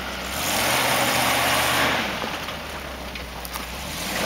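Land Rover Defender 90's engine working at low speed as the truck crawls over a rocky mound, the note swelling louder for about a second and a half near the start, then easing back.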